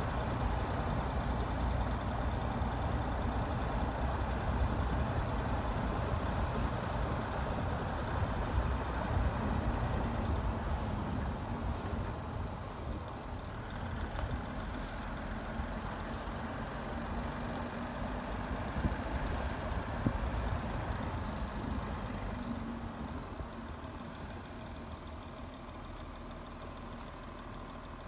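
A vehicle's engine running: a steady low rumble that gradually grows quieter over the last several seconds.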